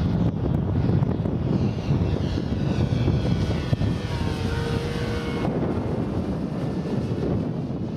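Twin-engine radio-control scale A-26 Invader model flying past, its engine note sliding down in pitch as it goes by, over a steady low rumble of wind on the microphone. The engine tone cuts off suddenly about two-thirds of the way through.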